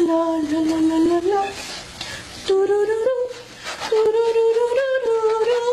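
A woman humming a tune with her mouth closed, holding long notes. There is a short break about one and a half seconds in, and the later notes sit higher in pitch.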